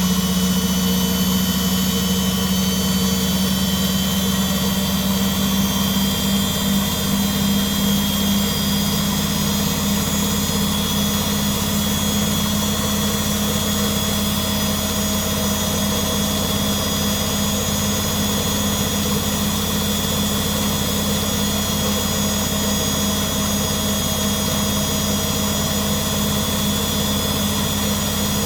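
Front-loading washing machine's motor driving the drum through its belt, with the covers off: a loud, steady hum and whine that creeps up in pitch over the first several seconds and then holds.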